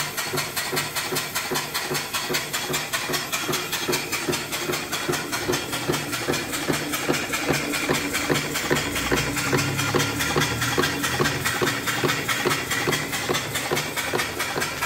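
Antique horizontal mill steam engine (3-inch bore, 4-inch stroke) running steadily on live steam. Its exhaust puffs in a fast, even rhythm over a constant hiss of escaping steam.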